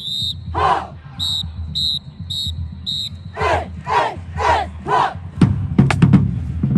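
A marching band's whistle blowing a run of short blasts about half a second apart, answered by loud shouted call-outs, four in quick succession. About five seconds in, the drum line starts playing sharp rapid strikes.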